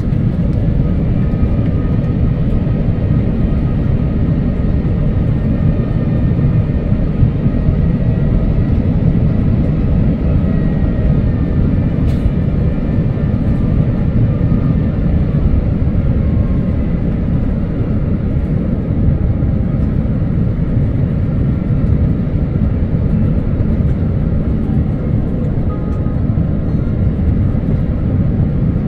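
Steady low rumble of an Airbus A350's cabin noise, engines and airflow, with a few faint steady tones above it. A single faint click comes about twelve seconds in.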